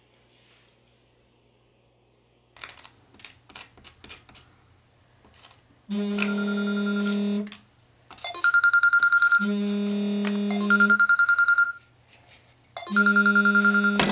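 A few soft taps on a mobile phone, then a phone ringtone ringing in repeated electronic bursts, a low steady tone alternating with a higher fast trill.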